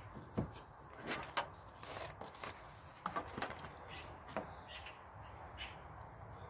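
Short plastic clicks and clacks of a rear wiper blade being worked loose and pulled off the wiper arm's plastic clip by hand, a string of irregular knocks that stops about five and a half seconds in.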